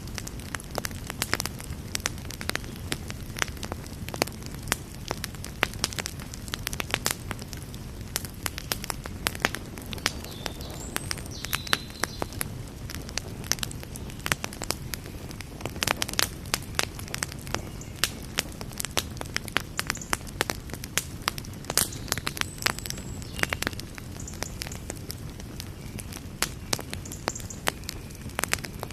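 Campfire burning, with frequent irregular sharp crackles and pops over a steady low rumble of the flames.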